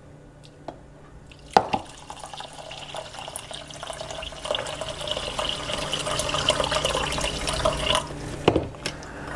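Water poured from a filter pitcher into a stainless-steel bowl of rice, a steady splashing pour that starts with a clink about a second and a half in and stops near the end, followed by a short knock.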